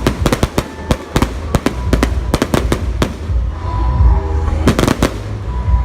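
Fireworks display: many sharp bangs of bursting shells at irregular spacing, some in quick clusters, over a steady low rumble.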